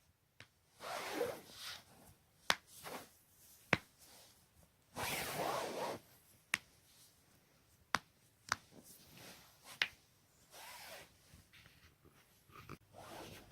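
Joints cracking: about seven sharp single pops spread out one by one, between bouts of rustling from body movement.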